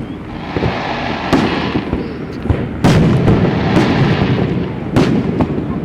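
Fireworks bursting: three sharp bangs, about one and a half, three and five seconds in, over a continuous rumble of other bursts.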